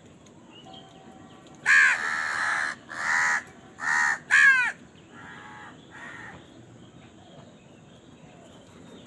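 Crow cawing: four loud, harsh caws in quick succession starting about two seconds in, the first the longest, followed by two fainter caws.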